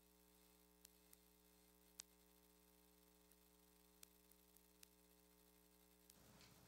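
Near silence: a faint, steady electrical mains hum with a few faint ticks. About six seconds in, the hum cuts off and faint room sound comes in.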